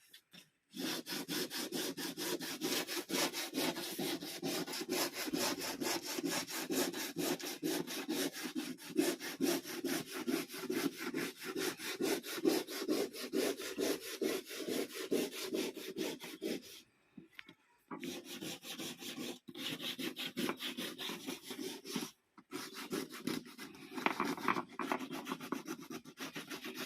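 A hand tool scraping on wood in quick, even back-and-forth strokes, several a second. The stroking stops briefly twice and then carries on.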